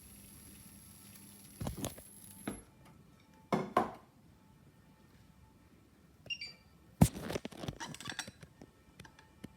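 Handling noises around a glass mug and a thermometer: a few dull knocks, a brief ringing clink about six seconds in, then a sharp knock, the loudest, followed by a second of clattering.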